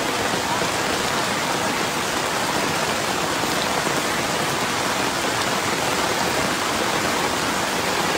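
Heavy rain pouring steadily onto a flooded street, an even, unbroken hiss.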